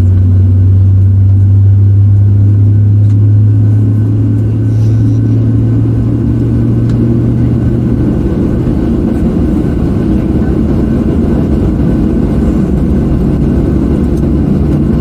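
Airliner cabin noise from the jet engines and airflow: a loud, steady low drone that eases off a few seconds in and gives way to a broader, even rumble.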